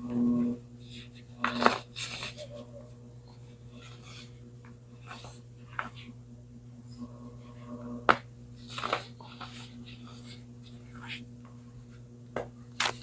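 Frozen baking soda crunching and crackling: irregular crisp snaps, the sharpest a little after one and a half seconds, at about eight seconds and near the end, over a steady low electrical hum.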